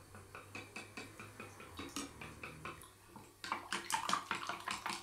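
Chopsticks beating raw eggs and dashi in a glass measuring jug: quick clicks of the chopsticks against the glass with wet sloshing, picking up pace and getting louder about three and a half seconds in.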